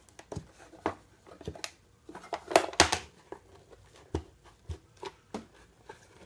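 The cover of a small homemade solder-feeder enclosure being worked loose by hand: scattered clicks, knocks and scrapes, with a cluster of louder knocks about two and a half seconds in.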